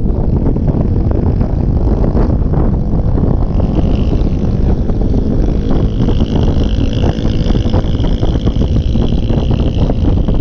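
Wind buffeting the camera microphone over the motor scooter's engine and road noise while riding at highway speed. A steady high-pitched whine joins in about four seconds in and holds until near the end.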